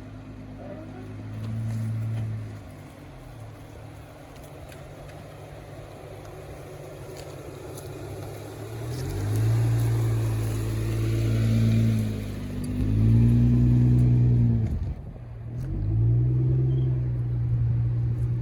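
Jeep Wrangler engine pulling under throttle off-road: quiet at first, then from about halfway revving up, easing off and picking up again several times.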